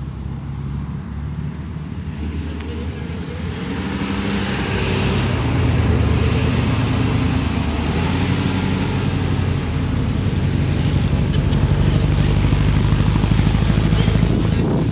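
A motor vehicle's engine running close by, growing louder over the first several seconds and then holding steady.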